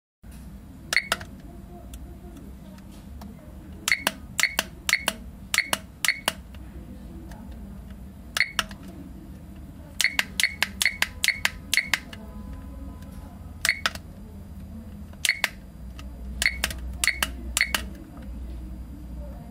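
Digital alarm clock's beeper giving short, high key-press beeps as its buttons are pressed, singly and in quick runs of two to six, over a steady low hum.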